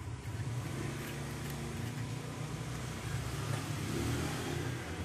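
A steady low mechanical hum with a hiss over it, swelling slightly about four seconds in and easing near the end.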